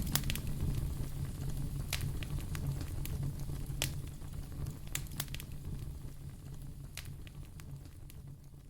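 Fire crackling, with scattered sharp pops and snaps over a low rumble of burning, fading steadily lower throughout.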